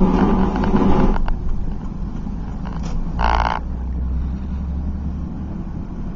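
Grinding and rattling from the front end of a 2005 Chevy Silverado 4x4, heard inside the cab while driving. It is loudest for about the first second, then gives way to the steady low drone of the truck on the road, with a short squeak about three seconds in. The owner suspects a sticking front-axle servo or a bad hub bearing.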